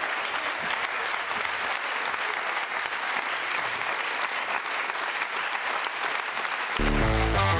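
Audience applauding and cheering steadily in a hall at the end of a speech. Near the end, electronic music with a heavy bass line cuts in over it.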